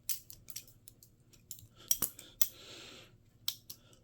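Balisong being flipped: the metal handles and blade click and clink against each other in quick, irregular taps, with a short rattle about two and a half seconds in.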